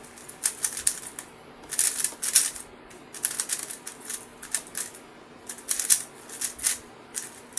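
A MoYu WRM V10 speedcube being turned fast in a solve: rapid plastic clicking and clacking of the layers, coming in quick bursts of turns with short pauses between them, starting about half a second in.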